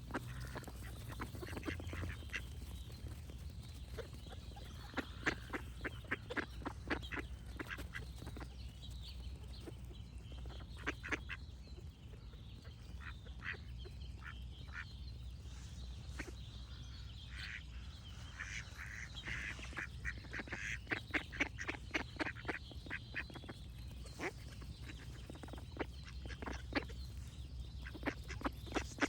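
Ducks quacking in scattered runs of short, rapid calls, with small birds singing in the background.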